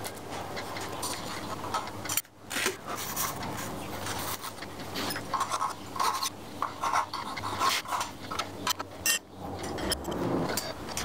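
Hand work with steel pieces on a milling machine table: irregular scraping and rubbing strokes with light metallic clinks.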